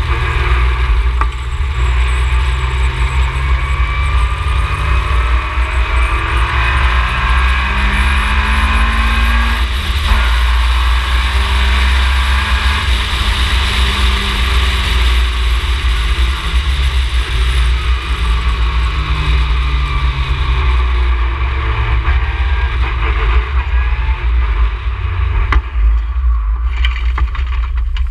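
Ginetta G20 race car engine at speed, its pitch repeatedly rising and dropping back through gear changes over heavy low rumble; it eases off a couple of seconds before the end.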